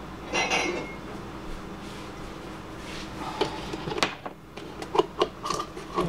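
Sharp clicks and light clanks of hands working the parts of a DeLonghi EC5 espresso machine, several in the second half, over a low steady hum. A short pitched sound comes about half a second in.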